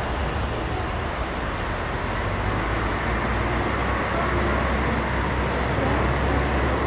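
Boeing 737-700's CFM56 jet engines running at taxi power as the airliner turns toward the runway: a steady rush with a low hum, growing slightly louder.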